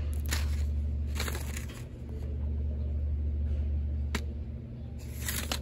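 Paper seed packet handled and turned over in the hand, giving a few brief rustles and one sharp click about four seconds in, over a steady low background hum.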